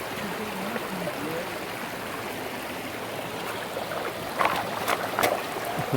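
River water rushing steadily, with a few sharp knocks or clicks close together about four and a half to five and a half seconds in.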